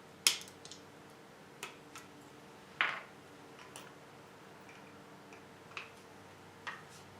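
Irregular small clicks and taps of the digital torque wrench's plastic battery compartment and lid being handled and pressed into place, with a sharper click near the start and another about three seconds in.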